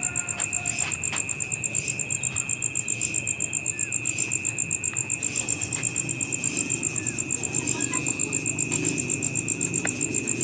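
Insect chirping in a fast, even pulse, about seven pulses a second, high-pitched, with a steady lower tone running under it.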